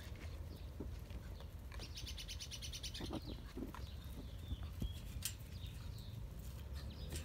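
A small bird chirping, with a fast high trill about two seconds in and a few short chirps after it. A few faint clicks and knocks and a steady low rumble lie underneath.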